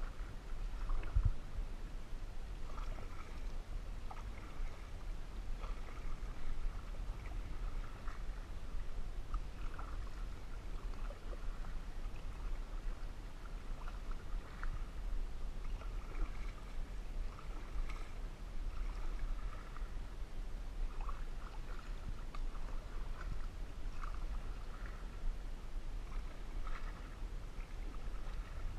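Canoe paddle strokes in lake water: repeated light dips, swirls and drips every second or two, over a steady low rumble.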